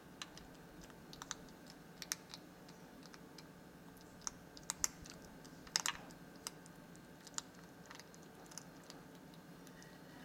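Hedgehog crunching dry cat kibble from a bowl: irregular crisp crunches, the loudest cluster about halfway through.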